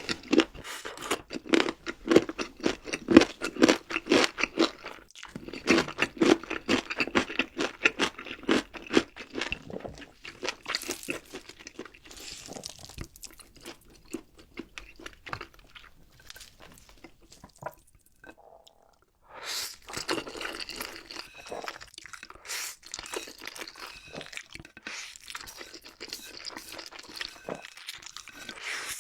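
A person eating crunchy food into a close microphone: rapid crunching and chewing for about the first ten seconds, then sparser bites, a brief pause about eighteen seconds in, and crisp crunching again after it.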